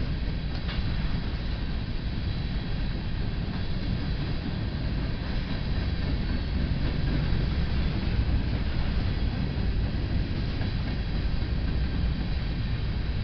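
Covered hopper cars of a freight train rolling past close by: a steady low rumble of steel wheels on rail, with a faint high ringing tone above it.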